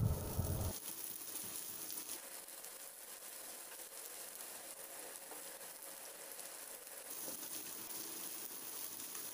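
Shredded cabbage and onions sizzling in hot oil in a non-stick frying pan as they are stirred with a spatula: a soft, even hiss.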